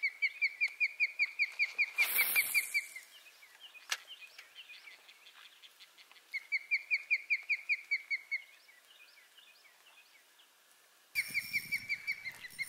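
A bird calling: rapid trains of short, clear whistled notes, each train lasting about two seconds, heard three times. There is a brief rush of noise about two seconds in.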